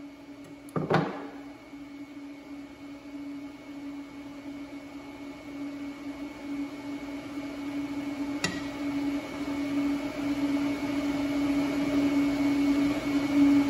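A steady machine hum on one low tone, growing gradually louder, with a sharp knock on the metal workbench about a second in and a lighter click past the middle.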